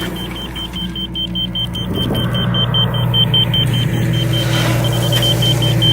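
John Deere excavator's diesel engine running steadily, over a rapid high-pitched beeping of about seven beeps a second that breaks off for about a second partway through. The beeping is typical of a grade laser receiver signalling off-grade while elevations are checked.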